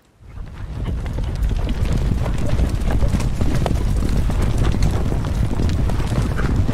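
Several ridden horses galloping, a dense drumming of hoofbeats over a deep rumble, rising suddenly out of near silence within the first second and staying loud.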